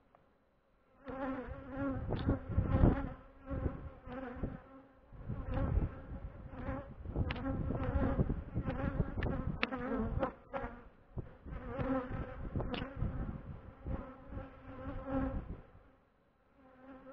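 Honeybees flying around an opened hive and close past the microphone, a loud buzzing that swells and fades as individual bees pass. It starts about a second in and dies away near the end.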